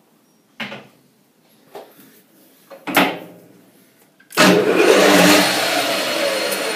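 A few short knocks, the loudest about three seconds in, then a metal lathe's spindle starts up about four seconds in, running loudly with a whir and gear whine as the four-jaw chuck spins up. The spindle comes up faster than wanted for facing the bar.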